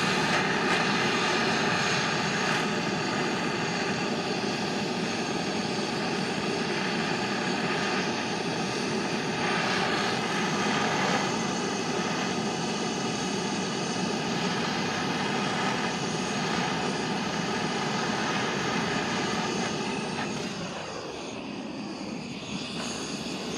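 Propeller airplane engine droning overhead, steady for about twenty seconds, then falling in pitch and fading a little as the plane passes and moves away.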